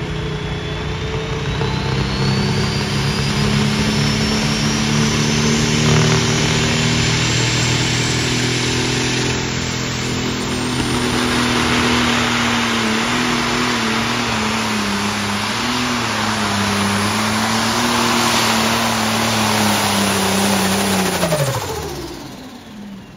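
Turbocharged diesel pulling-tractor engine run at full throttle under heavy load as it drags the sled, its pitch wavering. A high whistle climbs steadily in pitch over the first several seconds. Near the end the engine winds down sharply as the throttle comes off at the end of the pull.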